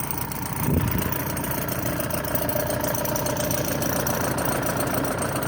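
Excavator's diesel engine running steadily at idle, with a single low thump a little under a second in.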